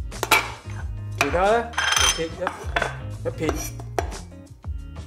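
A few sharp knocks and clinks of a cleaver and a ceramic plate on a bamboo cutting board as rehydrated shiitake mushrooms are handled for slicing, over soft background music.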